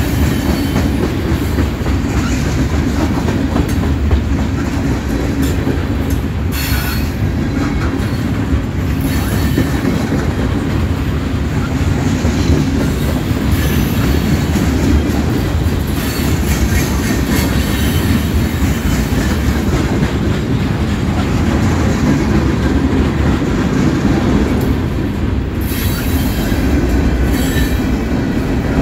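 Freight train cars rolling past at close range: a steady, loud rumble and clatter of steel wheels on the rails. The cars are autoracks and then covered hoppers, and a few times the wheels give brief high squeals.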